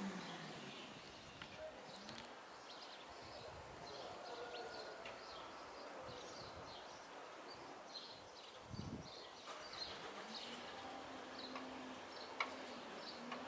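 Eurasian tree sparrows chirping: a faint, continuous series of short, high chirps.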